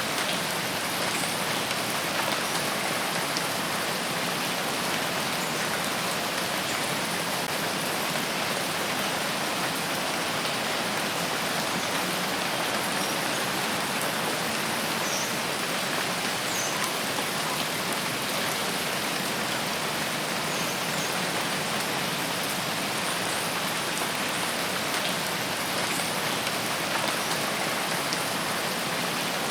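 Steady rain falling: an even, dense hiss with no let-up.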